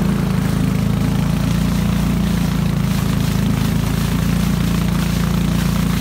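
Small wooden motorboat's engine running steadily under way, a constant low drone, with the rushing hiss of water from the wake.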